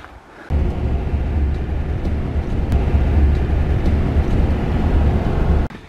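Strong wind buffeting the microphone: a loud, deep, fluttering rumble that starts abruptly about half a second in and cuts off just before the end.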